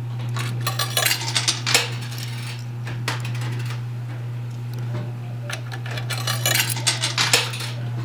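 Quarters clinking and clattering in a coin pusher machine, in two bursts of quick metal-on-metal clinks, about a second in and again near the end, over a steady low hum.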